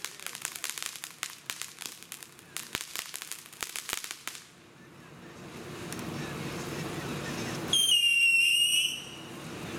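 Black Cat Superior Sea Weed firework fountain spraying sparks: dense crackling for the first four seconds or so, then a steady rushing, with a loud, slightly wavering whistle lasting about a second near the end.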